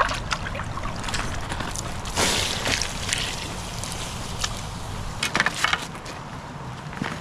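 Creek water splashing as a small camp cooking pot is dipped in and filled, then water poured from the pot onto a campfire's ashes to douse it, over the steady rush of the creek. A few short knocks a little after halfway.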